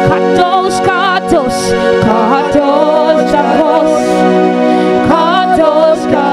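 Worship music: sustained keyboard chords under a wavering melody line with vibrato and pitch slides, and light percussive ticks.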